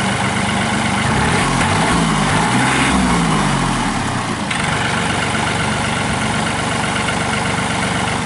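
John Deere 2032R compact tractor's three-cylinder diesel engine running, its pitch shifting up and back down for a few seconds before settling into a steady run.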